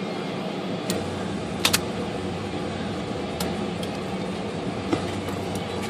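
Steady mechanical hum with a few light clicks and taps from hands working on the typewriter's parts, including a close double click just before two seconds in.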